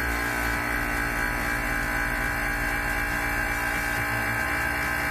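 Vacuum pump running steadily, drawing the air out of a vacuum chamber.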